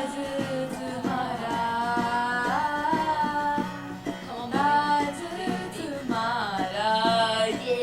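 A woman singing held, melismatic lines without clear words over a plucked guitar accompaniment.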